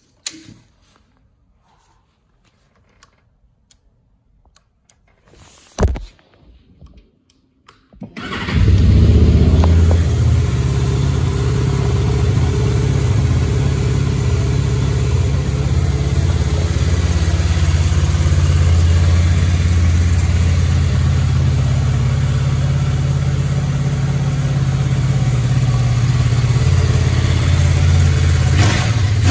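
Honda Crossrunner's V4 engine started on the button about eight seconds in, catching at once and then idling steadily. Before the start there are a few faint clicks and one sharp click.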